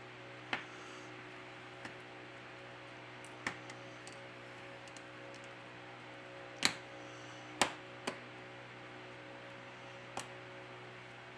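Several small sharp clicks and taps from handling phone parts: a fingertip pressing the back cover's flex-cable connector onto the board and the back cover brought to the frame. About seven clicks in all, the loudest two a second apart about two-thirds of the way in, over a steady low hum.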